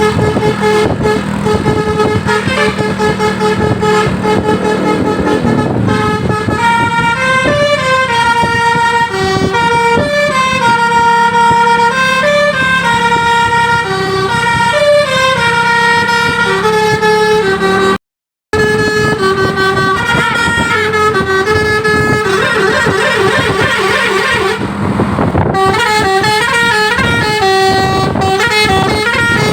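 Bus 'basuri' musical horns playing a tune: a run of held horn notes stepping up and down in pitch, one after another. The melody breaks off for half a second about two-thirds of the way through, and a fast warbling trill sounds a few seconds later.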